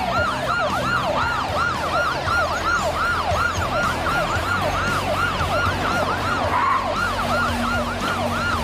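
Several police car sirens sounding at once in a fast yelp, their rising-and-falling sweeps overlapping several times a second.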